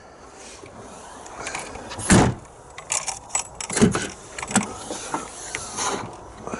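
Range Rover P38 lower tailgate lock and latch being worked with a key: a heavy clunk about two seconds in as the latch releases, then a series of lighter metallic clicks and rattles. The latch was sticking because the lock had not gone fully over and is dry of grease.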